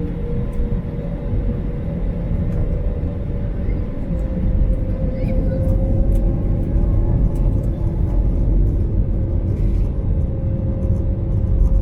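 Inside the cabin, the Airbus A320neo's Pratt & Whitney PW1100G geared turbofans running: a steady deep rumble with a droning engine tone that edges up in pitch and grows louder about four seconds in, over light cabin rattles.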